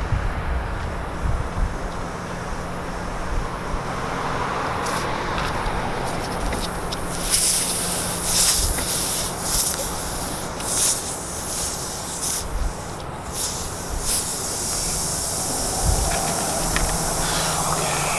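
Air hissing out of a gash in a pressurised truck tire in short irregular spurts, then more steadily near the end, over a steady low hum.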